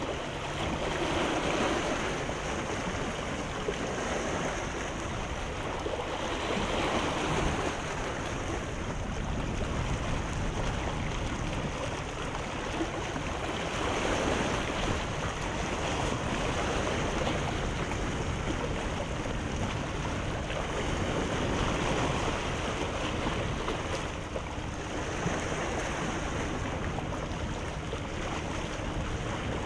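Small sea waves breaking and washing in, the rush of surf swelling and fading every several seconds.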